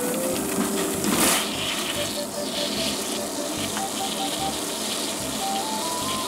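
Bean sprouts dropped from a plastic colander into a pot of boiling water, a splash about a second in, then the boiling water bubbling. A light background tune with a simple stepping melody plays throughout.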